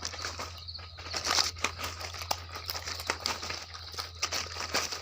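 Dense, irregular crackling and clicking over a steady low hum.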